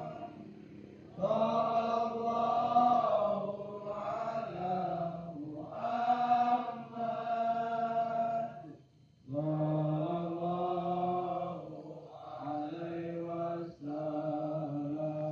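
A group of voices chanting together in long, held, sung phrases, with short breaks between phrases and a clear pause about nine seconds in.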